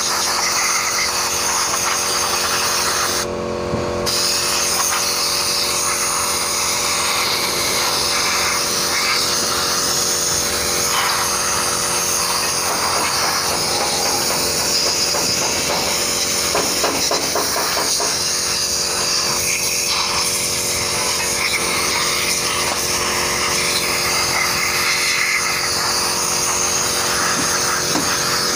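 Compressed-air spray gun hissing steadily as it sprays cleaning liquid onto a bare engine block, with a steady hum underneath. The hiss drops out briefly about three seconds in, then resumes.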